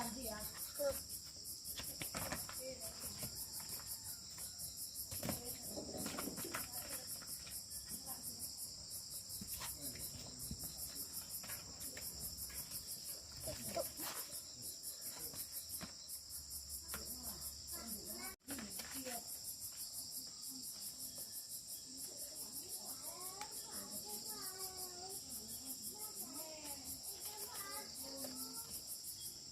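Steady chorus of insects, a high shrill trill with a fast even pulse, with a brief break about two-thirds of the way through.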